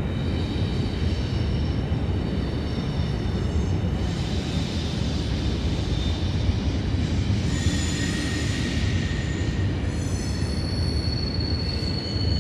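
Freight train rolling past, a steady low rumble of the cars with high-pitched wheel squeal that comes and goes.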